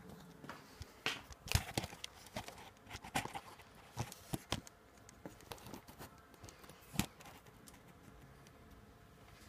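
Handling noise from a phone camera being gripped and propped against a wicker basket: irregular knocks, taps and rustles, the loudest about a second and a half in and again at about seven seconds.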